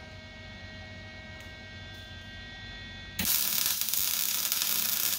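Lincoln MIG welder laying a tack weld on steel body-mount angle iron: a low steady hum, then about three seconds in the arc strikes abruptly and crackles evenly for over two seconds.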